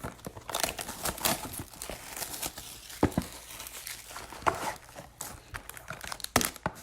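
Plastic wrapping on a box of trading cards crinkling and tearing as it is opened, a dense run of irregular crackles.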